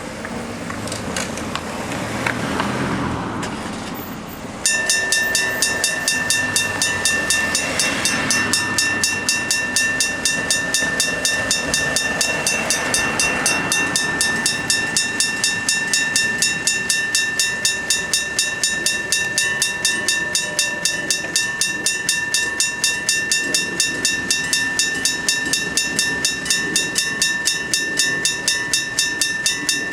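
Japanese electric-bell level-crossing warning bells start ringing abruptly about four and a half seconds in, a rapid, steady metallic ringing that keeps on without a break. The near and far warning signals ring at different speeds. The ringing signals that a train is approaching the crossing.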